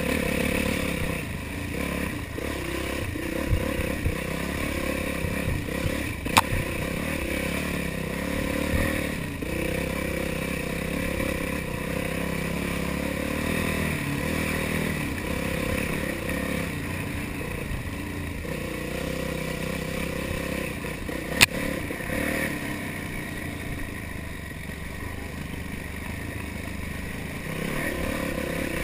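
Yamaha YZ450F's single-cylinder four-stroke engine revving up and down through a technical woods trail, with the bike clattering over rough ground. Two sharp knocks stand out, about six seconds in and again about twenty-one seconds in.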